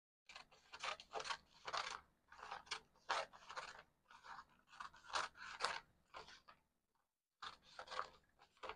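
Scissors cutting through pattern paper: a run of irregular snips and crunches, stopping briefly about seven seconds in before starting again.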